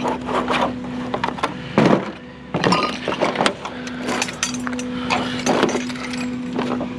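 Glass and metal clinking and cracking in a run of irregular sharp knocks as scrap light fittings with bulbs are handled and broken, over a steady low hum.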